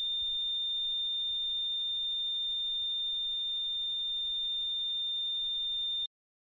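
Patient heart monitor sounding the continuous high-pitched flatline tone of a flat ECG trace, the sign that no heartbeat is detected, with a fainter pulsing tone underneath. It cuts off suddenly about six seconds in.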